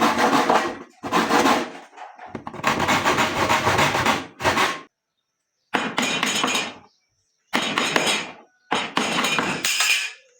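Woodworking noise: knocking, clattering and rubbing of tools on wood, in several bursts of a second or so, cut off by short silences.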